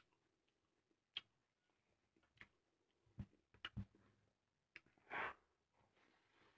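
Faint sounds of eating by hand: scattered soft clicks and smacks of fingers, food and mouth, with one brief, louder sound about five seconds in.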